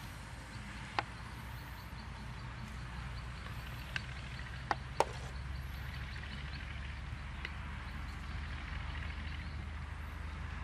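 A metal spoon clicks sharply against a mortar four times while stirring cabbage, twice in quick succession about five seconds in. The clicks sit over a steady low outdoor rumble.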